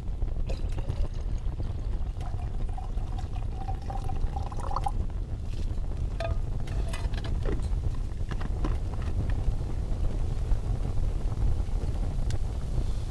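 Liquid poured into a container, with a tone rising in pitch for about three seconds as it fills. A few light clinks and knocks follow, over a steady low rumble.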